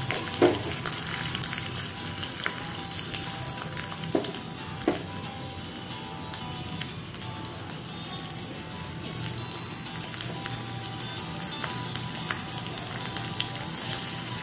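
Crushed garlic cloves and two green chillies frying in hot oil in a small kadai: a steady sizzle with many small pops.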